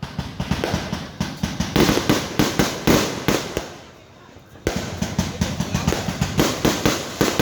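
Fireworks going off in a rapid barrage of bangs and crackles. They die away for a second or so past the middle, then start again suddenly and run on as fast as before.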